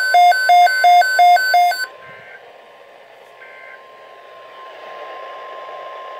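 Weather radio alarm beeping rapidly in two alternating tones, low-high, cutting off suddenly about two seconds in. After that only a faint steady alert tone remains over radio hiss.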